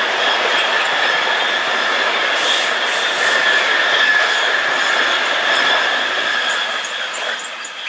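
Long container freight train rolling past: steady rumble of wheels on rail with a high squealing whine held through it, fading toward the end as the train draws away.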